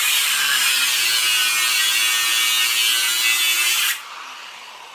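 Angle grinder cutting into the metal outer plate of an antique safe: a loud, steady, high-pitched grinding with a faint motor whine under it. About four seconds in it is switched off and the disc spins down, fading away.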